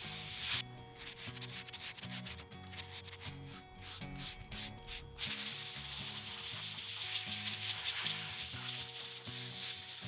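Light wire brush scraping crusty, caked sawdust out of the oil felt in a sawmill's sheet-metal guide-rail cover. It goes in quick separate strokes at first, then turns to steady continuous scrubbing about five seconds in.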